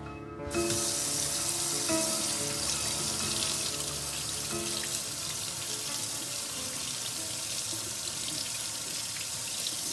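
Kitchen faucet running into a stainless steel sink, the stream splashing over hands and a hammer being rinsed under it; the water comes on about half a second in and runs steadily.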